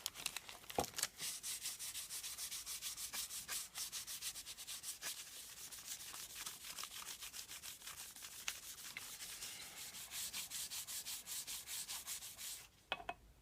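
Quick back-and-forth rubbing strokes as travel grease is scrubbed off a new low angle block plane with white spirit. The rhythm keeps up for about eleven seconds and stops shortly before the end.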